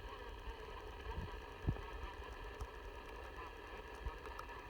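Faint steady hum with a couple of soft low bumps about a second and a half in.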